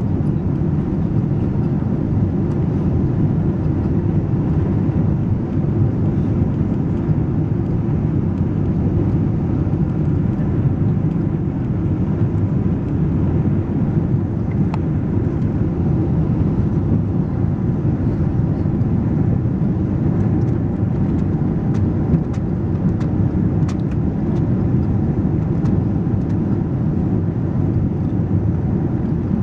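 Steady low rumble of airflow and GE90 engines heard inside the cabin of a Boeing 777-200ER on final approach with flaps extended.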